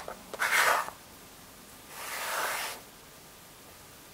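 Wooden alphabet blocks handled in a wooden block wagon: a sharp clack as a block knocks another, then two short scraping slides as blocks are pushed across the wood, the second about two seconds in.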